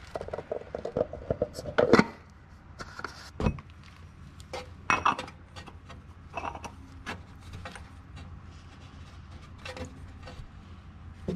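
Irregular small clicks, clinks and knocks of hand-handling as a BMW N63 V8's oil filter cap, carrying a new filter, is fitted up into its housing and threaded back in by hand, with a few sharper knocks about 2, 3½ and 5 seconds in.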